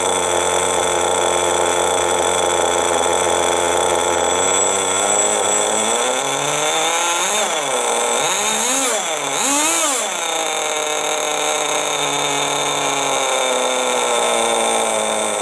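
Veco .21 two-stroke glow engine of a vintage Kyosho Baja Body nitro RC buggy running steadily at idle, then blipped several times about halfway through, its pitch rising and falling with each rev before settling back to a steady idle.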